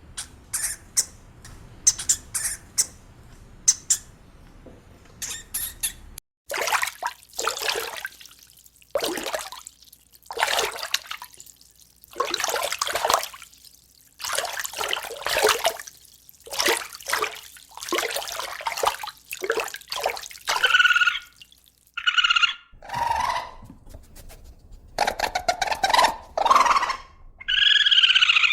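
A run of animal calls: quick sharp chirps and clicks, then a series of hissing, rushing bursts, then pitched calls that rise and fall over the last several seconds.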